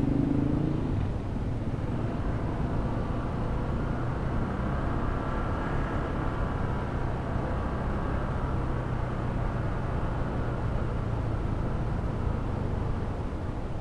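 Honda ADV 160 scooter's single-cylinder engine running steadily while riding, with road and wind noise. A fainter higher whine swells and fades in the middle.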